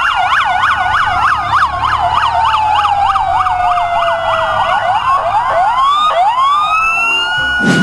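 Police car sirens: a fast yelp rising and falling about four or five times a second, overlaid with slower wailing sweeps, and a few rising wails near the end.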